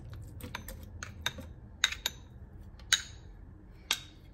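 Irregular light clicks and taps of a metal spoon against a ceramic bowl and a plastic blender jar as boiled beans are scooped into the jar, with a few sharper knocks about two, three and four seconds in.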